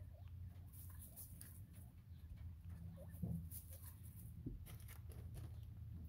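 Bobwhite quail pecking and scratching in loose hay: faint scattered ticks and rustles, with a small thump about three seconds in, over a steady low hum.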